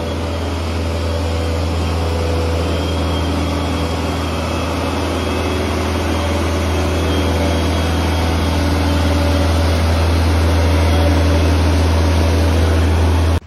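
A boat travel lift's engine running steadily, a loud deep drone with a few faint steady tones above it.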